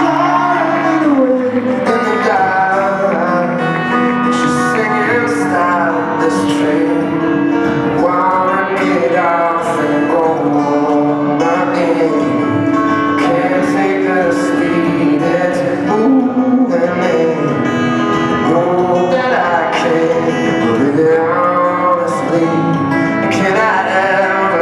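Live acoustic guitar playing an instrumental passage of a song, with a melody over sustained low notes and no sung lyrics.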